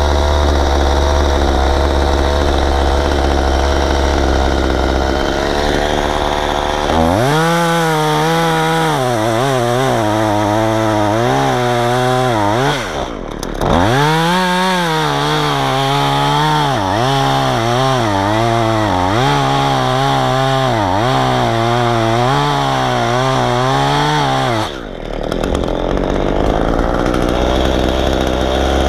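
Efco MT 3600 two-stroke top-handle chainsaw idling, then revving under load as it cuts into a log from about seven seconds in, its pitch rising and sagging over and over. It drops out briefly about halfway, cuts on, and falls back to idle for the last few seconds.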